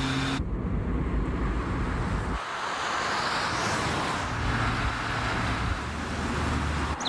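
Motor vehicle engine and road noise, a steady low rumble under a noisy haze. It changes abruptly twice in the first few seconds, like cuts between shots, and swells briefly in the middle.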